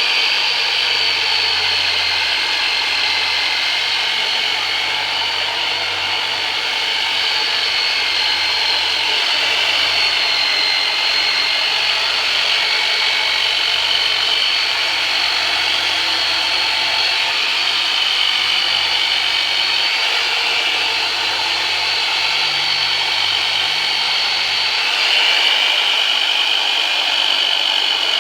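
Electric 'Turbonator' massage tool running steadily while pressed on a patient's back, its motor giving a steady whine with small shifts in pitch near the end.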